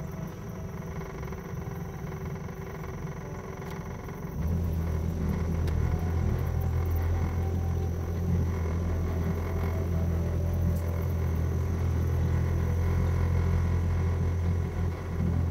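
Houseboat's outboard motor running with a steady low drone, which gets clearly deeper and louder about four seconds in as it is throttled up.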